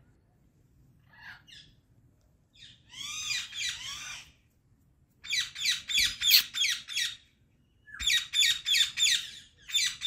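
Indian ringneck parakeet calling: a few soft chattering calls, then two runs of rapid, harsh, evenly repeated squawks, about six a second, with a short pause between them.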